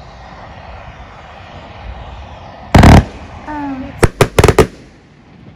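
New Year's Eve fireworks going off: one loud bang about halfway through, then a quick string of about five sharp cracks within half a second.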